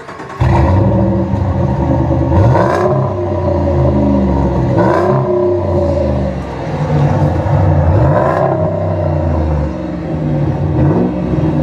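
V8 pickup truck engine accelerating hard under full throttle. The pitch climbs with the revs and drops back at each upshift, several times in a row.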